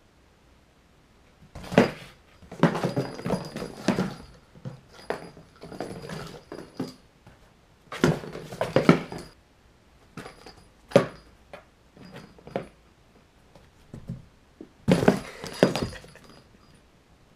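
Kittens playing in a cardboard box: irregular bursts of scuffling, scratching and thumps on the cardboard as they pounce and bat a small ball toy around, with short quiet gaps between.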